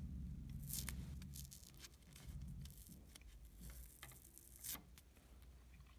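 Old adhesive pad being peeled and picked off a circuit board by fingers: faint, irregular tearing and scratching, with the sharpest rips a little under a second in and again near the end.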